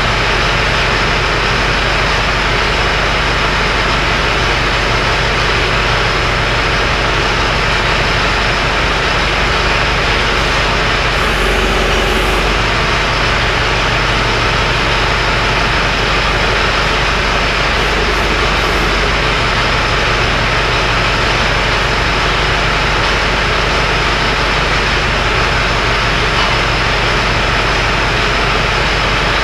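A machine running steadily: a loud, even noise with a low hum under it.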